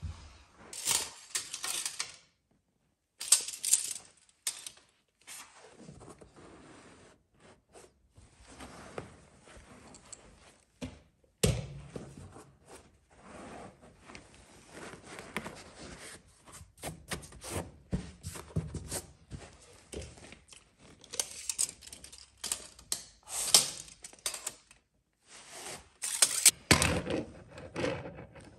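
Hand work on a carpet runner and wooden stairs: irregular thunks, taps and sharp clicks with scraping and rustling of carpet between them, in louder clusters near the start and again in the second half.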